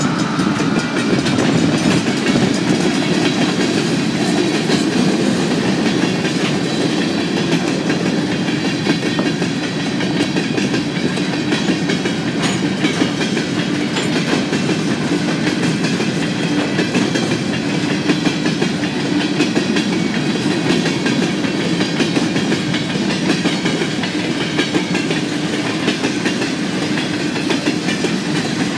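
Freight train passing close by: the last of three CN ET44AC diesel locomotives goes by, then loaded potash covered hoppers roll past with steady wheel-on-rail rumble and clickety-clack over the rail joints. A locomotive horn note dies away in the first second.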